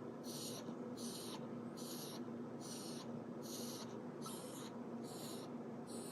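An elderly dog with heart disease breathing rapidly and evenly, each breath a short hiss, about five every four seconds. A steady low hum runs underneath.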